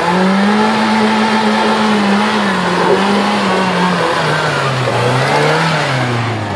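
Suzuki Vitara off-roader's engine revving hard under load as it drives through a deep muddy rut. The revs climb at the start, hold high and waver, then sag and rise and fall again near the end.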